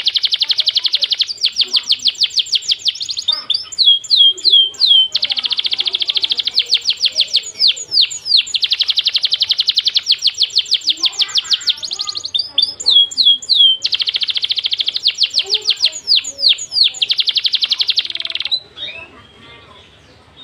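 Songbird trilling: long runs of very fast, tightly packed high notes, twice broken by a few downward-sliding whistles. The song stops about two seconds before the end.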